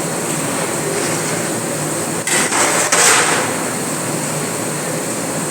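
Steady rushing noise with a short burst of sharp knocks and clatter a little over two seconds in, like hard utensils striking in a kitchen.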